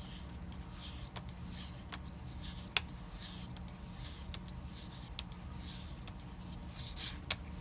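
Magic: The Gathering trading cards being handled and slid against each other, with repeated soft swishes and a few sharp clicks, the loudest about three seconds in, over a steady low hum.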